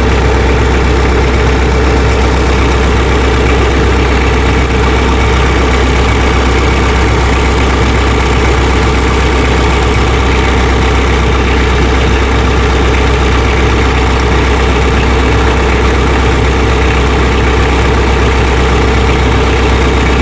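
Tractor engine idling steadily, with a few faint clicks now and then.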